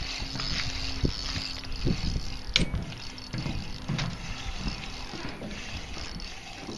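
Wind buffeting the microphone of a hat-mounted camera, with scattered low knocks, a sharp click about two and a half seconds in, and handling noise while a hooked bass is played on a spinning rod.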